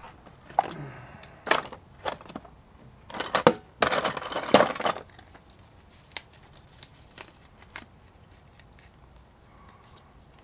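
Rustling and clattering of hands rummaging among tools and packaging, loudest in the first half, then a few small clicks as a blade is worked out of a utility-blade pack.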